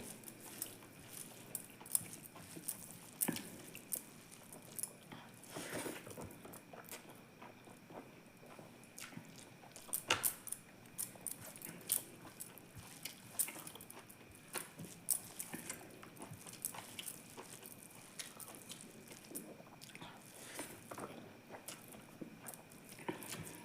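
Close-miked chewing and mouth sounds of a person eating: irregular wet smacks and short clicks, a few of them louder.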